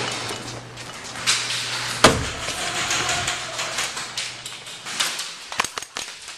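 Movement noise of a player running with a gun, with one sharp crack about two seconds in and a few quick sharp clicks near the end.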